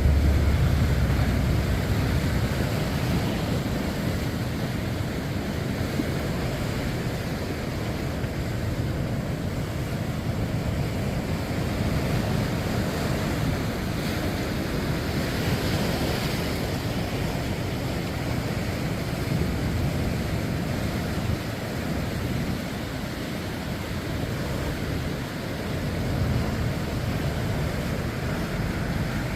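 Sea waves washing continuously onto the shore, with one wave surging louder about halfway through. Wind buffets the microphone, heaviest at the start.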